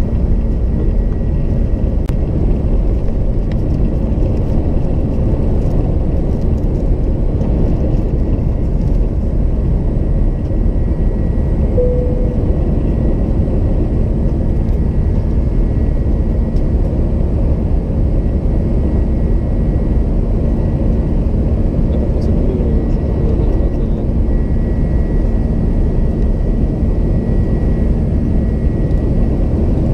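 Steady engine and airflow noise of an Airbus A330 heard inside the passenger cabin, a low, even rumble with a constant hum that holds unchanged throughout.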